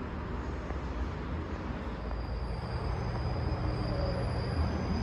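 Low rumble of an electric train at a station platform, growing slowly louder about two seconds in, with a faint thin high whine over it.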